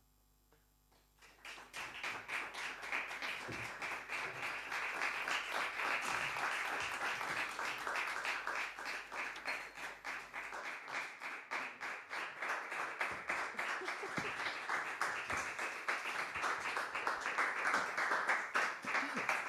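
Audience applauding, starting about a second in and dying away right at the end.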